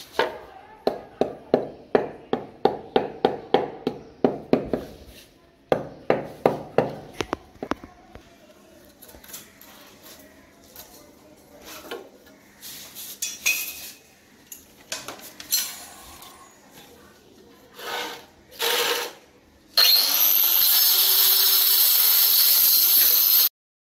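A run of quick ringing taps, about three a second, as natural stone cladding strips are tapped into place on the wall, then scattered light clicks and scrapes. Near the end a handheld marble cutter with a diamond blade runs loudly through a natural stone strip for about three and a half seconds and stops abruptly.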